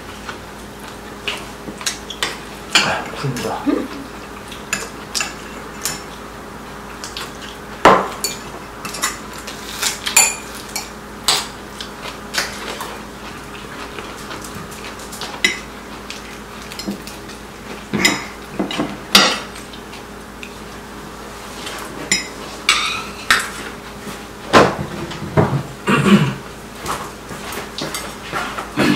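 Metal chopsticks and spoons clinking and tapping against ceramic bowls and plates during a meal: scattered, irregular clinks, some ringing briefly, over a faint steady hum.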